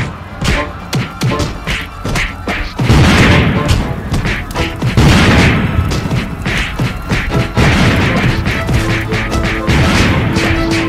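Cartoon battle sound effects: repeated crashes and booms of cannon fire and explosions, with heavy blasts about three and five seconds in, over dramatic background music.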